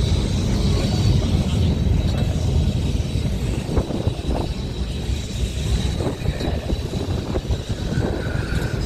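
Boat tram 600 running along the tramway, heard from on board: a steady low rumble from the running gear, with a few irregular knocks from the wheels over the rails.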